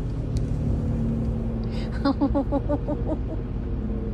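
A woman bursts into a quick run of laughter about two seconds in, over a steady low rumble.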